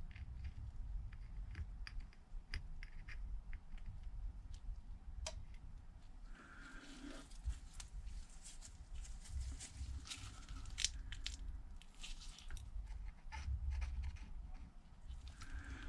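Faint scattered clicks, ticks and short scrapes of small hand tools and parts being handled on a smartphone during repair, over a low handling rumble.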